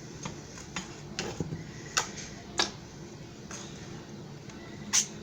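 Sharp clicks and taps of a kitchen utensil against a baking pan of chicken pieces, three louder strikes at about two, two and a half and five seconds with fainter taps between, over a low steady hum.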